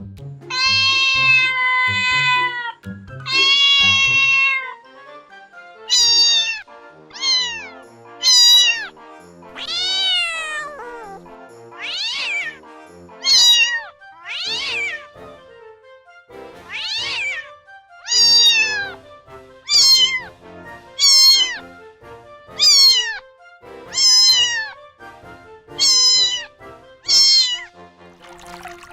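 Domestic cat meowing over and over, about seventeen meows: two long, level meows at the start, then a run of shorter meows that rise and fall in pitch, about one every second or so. Soft background music runs underneath.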